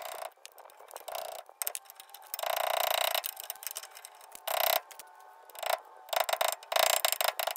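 Pliers and a steel pick working a cotter pin out of a rear axle nut: irregular bursts of metal scraping and clicking, the longest a scrape of under a second about two and a half seconds in.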